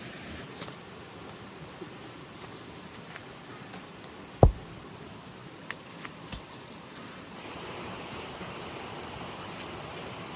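A steady, high, thin insect drone that stops about seven seconds in. A single dull thump comes about halfway through, followed by a few light clicks.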